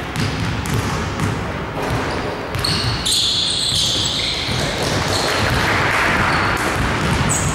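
A basketball bouncing on a hardwood gym floor, with players' voices and sneaker noise echoing in a large hall.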